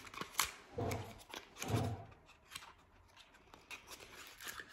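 A slim cardboard product box being handled and opened: the end flap pulled out, the cardboard scraping and clicking, with a couple of soft thumps in the first two seconds, then fainter small ticks.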